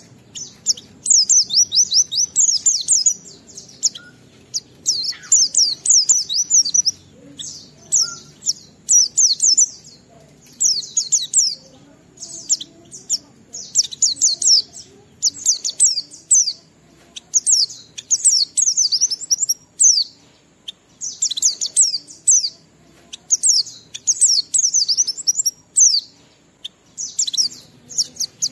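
White-eye (pleci) singing, in the Indonesian bird-keepers' "ngalas" style: rapid, high-pitched chattering phrases about a second long, following one another with short breaks.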